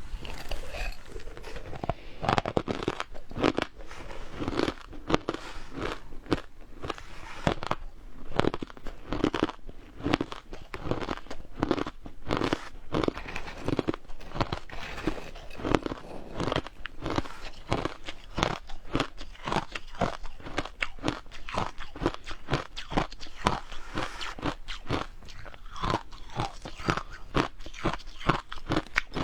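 Frozen matcha ice being bitten and chewed, a steady run of sharp crunches, several a second.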